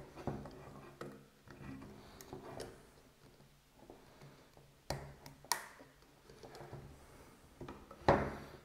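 Hands opening the plastic front end of a Wagner XVLP paint sprayer: scattered clicks, knocks and rubbing of plastic parts being unscrewed and unclipped, with a louder scraping clatter about eight seconds in.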